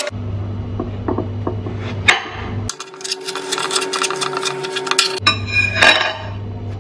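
A kitchen knife cutting through a watermelon on a ceramic plate: scraping, crunchy cuts through the rind with a few sharp knocks. A steady low hum runs behind and cuts in and out abruptly twice.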